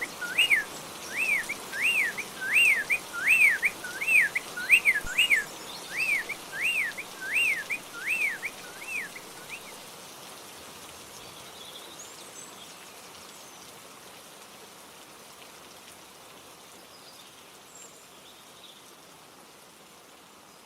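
Steady rain hiss with a bird repeating a whistled, rising-and-falling note about twice a second. The bird stops about nine seconds in, and the rain slowly fades out.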